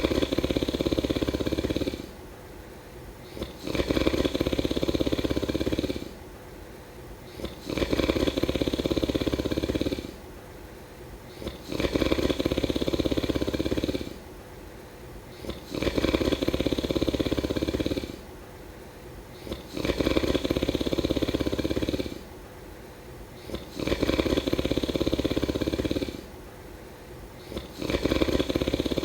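A sleeper snoring in a slow, even rhythm: a rough, rattling snore of about two seconds on each breath, about once every four seconds, with quieter pauses between.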